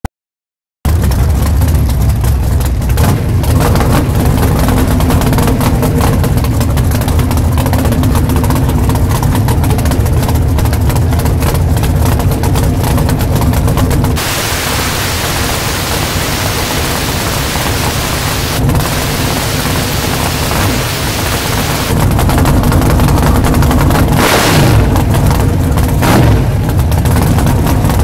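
A drag car's race engine idles loudly with a choppy, pulsing beat, heard up close from on the car's hood. For several seconds in the middle a loud steady hiss covers it and the engine sound drops back. There is a brief rise in engine pitch near the end.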